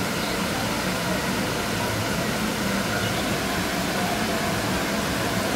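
Steady, even rushing noise with a faint low hum underneath.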